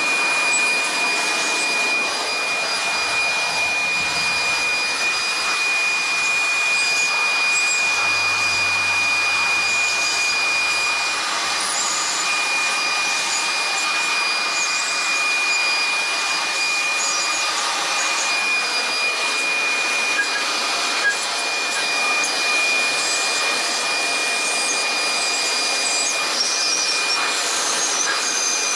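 Handheld electric leaf blower running steadily, a rush of air with a high whine over it, blasting water off a wet cast-iron LS 5.3 engine block.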